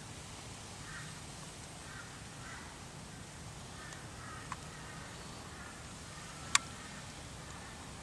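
A sulphur-crested cockatoo cracking a macadamia nut shell in its beak: a small click about halfway through and a single sharp crack about six and a half seconds in. Faint, short bird chirps sound in the background.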